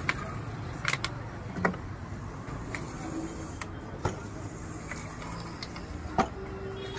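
Steady rumble of street traffic, broken by a handful of sharp clinks and knocks as bottles and glass tumblers are handled and set down on a soda stall's counter. The loudest knock comes about six seconds in.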